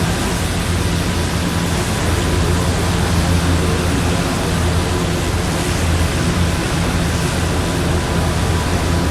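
Strong wind and heavy rain: a loud, steady rushing hiss with no breaks, over a low steady hum.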